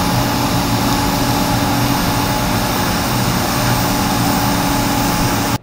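DC TIG welding arc burning steadily on aluminium plate as filler rod is dipped into the puddle: an even hiss with a low electrical hum.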